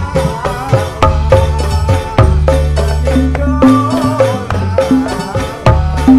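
Ndolalak dance music: drums and other percussion keep a fast, even beat under low sustained bass notes and a wavering melody.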